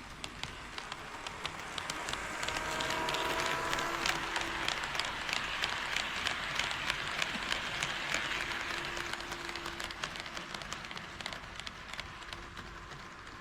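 HO-scale KATO D51 model steam locomotive running past on Unitrack, its wheels clicking rapidly over the rail joints, with a thin motor whine that rises in pitch in the first few seconds. It grows louder toward the middle and fades as it moves away.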